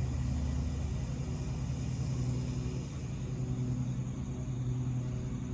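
Hot bronze ingot quenching underwater, giving a steady faint hiss and bubbling as it cools, over a steady low hum.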